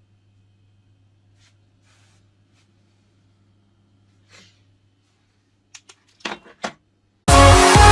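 A faint steady low hum with a few faint ticks, then a quick cluster of short knocks or clicks about six seconds in. Near the end, loud electronic dance music starts abruptly.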